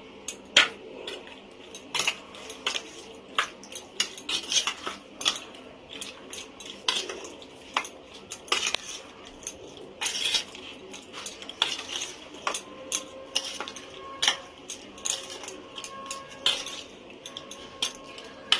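Steel spoon stirring raw prawns in a thick mustard and poppy-seed paste inside a stainless-steel box, clinking and scraping irregularly against the metal sides.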